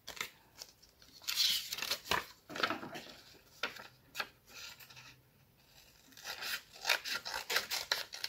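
Paper rustling as a sheet of craft paper is folded and handled, and scissors snipping through the folded paper, with a quick run of short cuts near the end.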